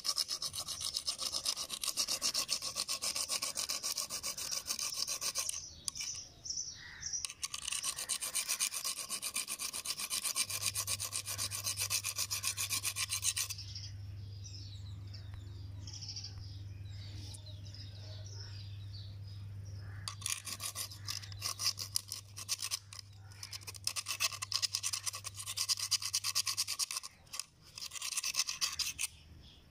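A small rusty metal rivet scraped rapidly back and forth across the face of an abrasive grinding wheel, a gritty rasping that scours the rust off by hand. It comes in spells with brief pauses, and is softer for a few seconds in the middle.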